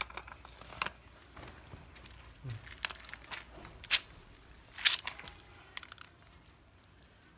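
Irregular clicks, light knocks and short rustling scrapes of something being handled, the loudest rustles about three and five seconds in.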